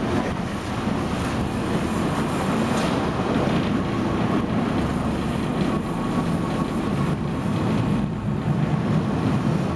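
Fishing boat's engines running steadily, with wind buffeting the microphone.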